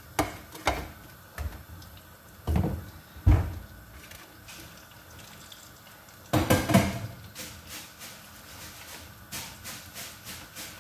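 Kitchen handling sounds of a metal mesh strainer bowl of salted fries and a salt container: a few knocks and clunks, a louder clatter about six seconds in as the bowl is moved, then a run of light, fairly regular clicks.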